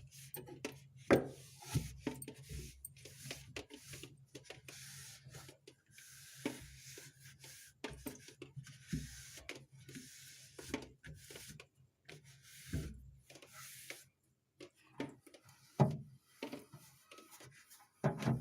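Soft cloth wiping the inside of a refrigerator: irregular rubbing strokes, with a few sharp knocks, the loudest about a second in.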